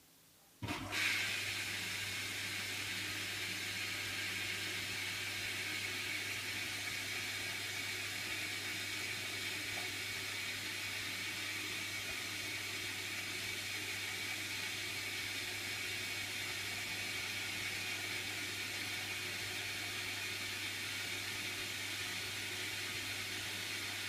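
Hotpoint washing machine running: a steady rushing hiss over a low, even hum that starts suddenly less than a second in.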